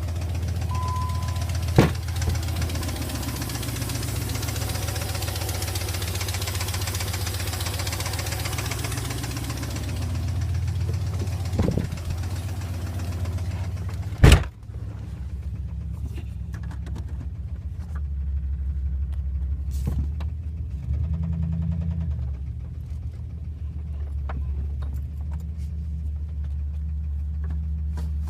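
2002 Dodge Ram's 4.7-litre V8 engine running steadily with a rapid ticking, which the owner takes for lifter tick. A loud knock or bump sounds about halfway through.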